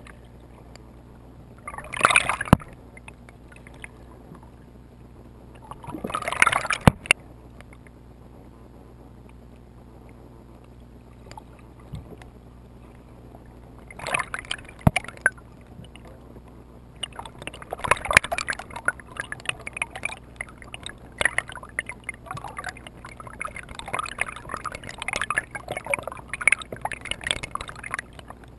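Water gurgling and bubbling around a submerged camera, in short bursts about 2, 6 and 14 seconds in, then almost without a break from about 17 seconds on, over a faint steady low hum.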